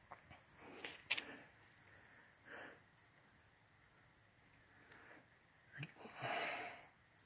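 Insects chirping steadily in the background as a thin, high, evenly pulsing trill, with soft breaths close to the microphone, the clearest about six seconds in, and a small click about a second in.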